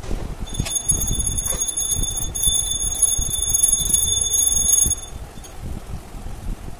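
A steady, high-pitched, alarm-like ringing tone starts about half a second in and cuts off about five seconds in, over a low background rumble.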